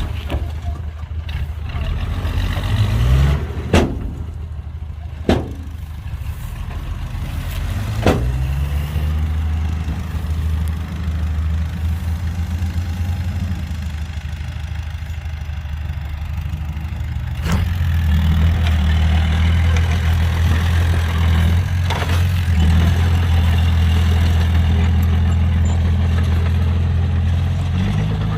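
Heavy diesel engine of construction machinery running with a steady low drone that rises about a third of the way in and again a little past halfway. Five sharp knocks are scattered through it.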